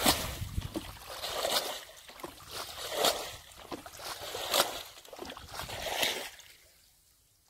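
Muddy water splashing and sloshing as a plastic bucket is swung through a shallow pool to bail it out, a surge about every second and a half, five in all, stopping near the end.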